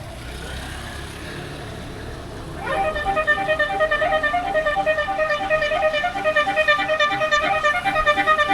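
Bus basuri horn playing a fast multi-note telolet melody, coming in loudly about three seconds in, over a low rumble.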